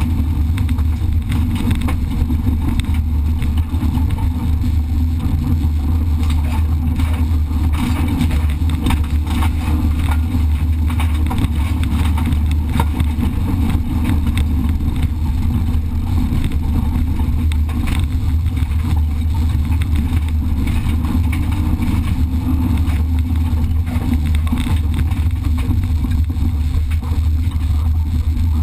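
Race car's engine running hard on a dirt track, heard from inside the cabin as a steady loud low rumble. Constant clicks and knocks from the rough, loose surface run through it.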